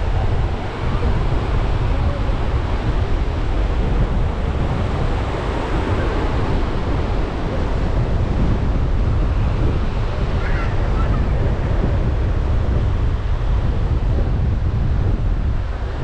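Surf washing onto the beach, steady and loud, with wind buffeting the microphone in a low rumble.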